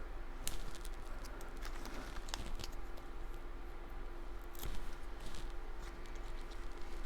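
Cardstock pieces being handled on a craft table: scattered light taps and paper rustles, over a steady low hum.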